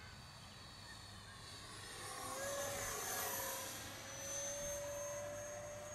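Electric ducted fan of a 50mm RC jet whining in flight. It is faint at first, then grows louder about two seconds in with a steady high whine and a rush of air as the jet passes.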